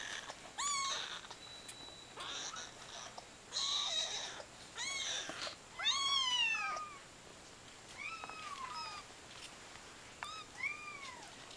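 Two-week-old nursing kitten mewing repeatedly, about eight short, high calls that rise and fall in pitch, the loudest about six seconds in, with rustling in between.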